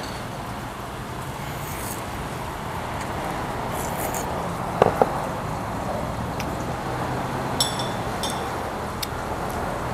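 Tableware clinking at a hot-pot meal: two sharp clinks about five seconds in and a few lighter metallic taps later, over a steady background hum.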